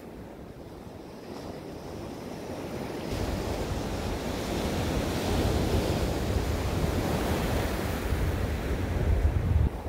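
Sea waves breaking and washing up a pebble beach, building in loudness. From about three seconds in, wind buffets the microphone with a low rumble that cuts off suddenly near the end.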